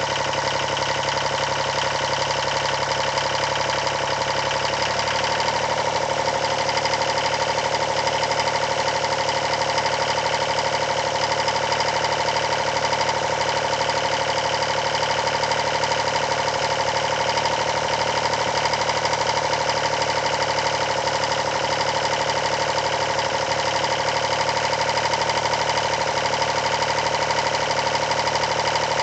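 Yanmar 336D tractor's diesel engine running steadily, its pitch rising slightly about five seconds in and then holding.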